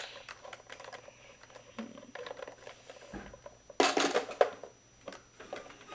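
Plastic toy blaster being handled, with light clicks and knocks. A louder sudden clatter comes about four seconds in.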